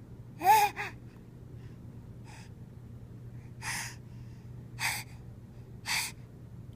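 Pre-sneeze breathing that stops short of a sneeze: a loud, squeaky catch of breath in two quick parts about half a second in, then three fainter sharp breaths about a second apart.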